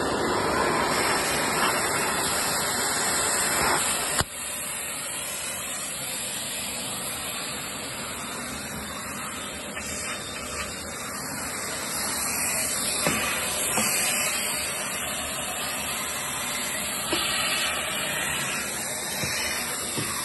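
Stick vacuum cleaner running steadily with a hissing suction rush. There is a sharp click about four seconds in, after which the sound turns thinner.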